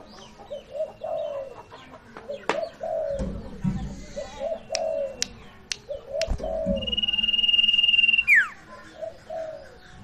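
A sirtu songbird gives one long, steady high whistle about seven seconds in, ending in a quick downward sweep. Behind it, doves coo in repeated groups of low notes, and there are several sharp clicks in the middle.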